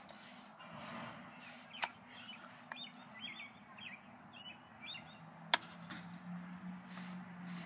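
Two sharp clicks, the second one the loudest, as the cracked iPod touch screen glass is pried up with opening tools, with short high chirps between them; a low steady hum starts about two-thirds of the way in.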